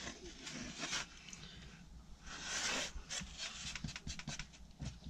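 Hands brushing and rubbing sawdust off wooden cladding board around a freshly cut hole, with one louder swish about halfway through and a few light taps and knocks after it.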